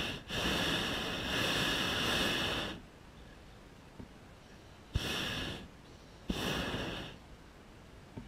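Hot air balloon's propane burner firing: one long blast of about two and a half seconds, then, after a pause, two short blasts of about half a second each, each starting with a sharp click.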